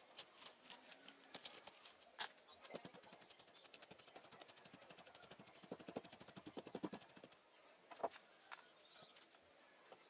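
A long blade stabbing and scraping into the fibrous pith inside a coconut palm trunk section: faint scratchy strokes that come fast and close together in the middle, then one louder knock about eight seconds in.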